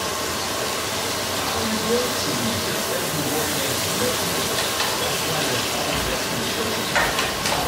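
Ground meat sizzling in a frying pan as a steady hiss, with a couple of clicks of a wooden spatula against the pan near the end as it is stirred.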